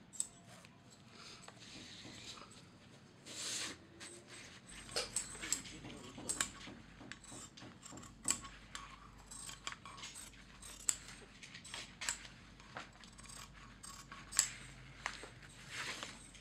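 Large steel scissors cutting a sandal upper out of a sheet of shoe material: a run of crisp snips with the rustle of the sheet being handled.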